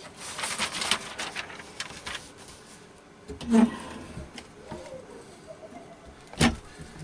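Workshop handling sounds: a quick flurry of rustling and light clicks, then two solid knocks about three seconds apart.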